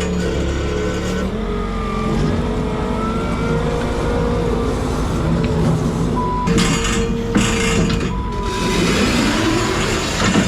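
Skid steer engine running under load, its pitch rising and falling as it revs. A reversing alarm beeps twice in the second half, and a harsh, noisy burst comes shortly before the first beep.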